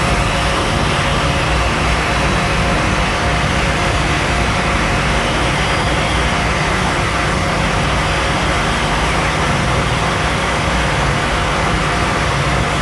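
Harsh amplified noise from a contact-miked angle grinder cutting through a car tire, mixed with a contact-miked calculator scraped on sandpaper. It is a dense, unbroken wall of noise at a steady level, with slow wavering rises and falls in pitch near the top.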